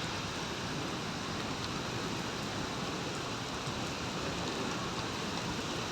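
Heavy rain falling steadily: an even, unbroken hiss of downpour with faint scattered drop ticks.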